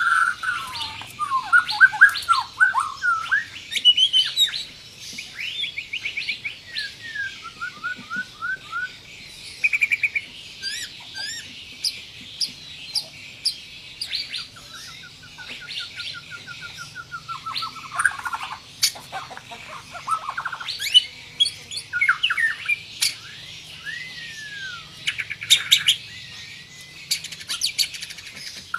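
White-rumped shama (murai batu) singing a long, varied song without pause: clear whistled phrases, fast rolling trills and sharp, high-pitched notes fired in quick succession.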